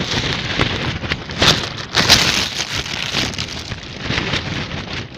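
Strong gusty wind battering a lightweight winter fishing tent, its fabric flapping and crackling rapidly, with two loud gusts about one and a half and two seconds in.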